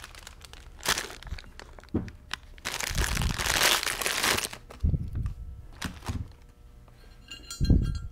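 Clear plastic bag crinkling as parts are handled. There are light knocks as the aluminium mid plate is moved about on the padded bench, and a faint small metallic ringing near the end as a snap ring is handled.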